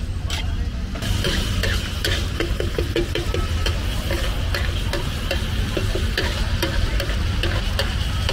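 From about a second in, a metal spatula clacks and scrapes rapidly against a large flat tawa griddle, with diced liver (kaleji) and masala sizzling in oil.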